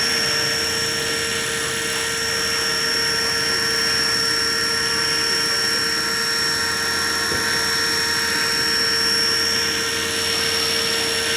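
450-size electric RC helicopter in a Bell Jet Ranger scale body, running steadily: a constant high-pitched motor and gear whine over the rotor noise, at an unchanging speed.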